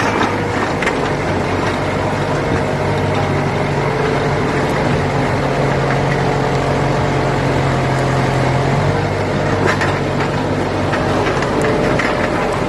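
A 95-horsepower farm tractor's diesel engine running steadily while tilling, with a slight change in its low pitch about nine seconds in and a few sharp clanks.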